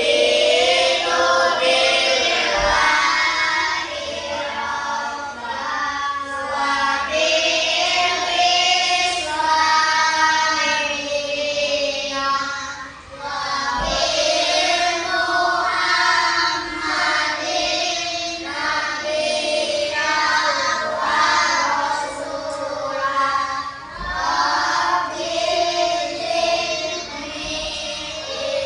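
A class of children chanting a prayer together in unison, in a sing-song recitation with a few brief pauses between phrases.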